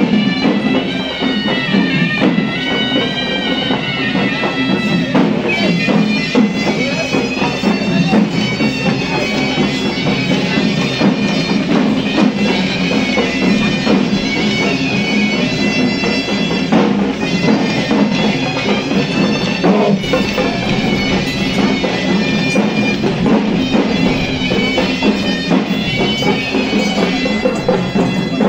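Reed-pipe music with drums: a shrill, wavering melody over a steady low drone, with drumming underneath.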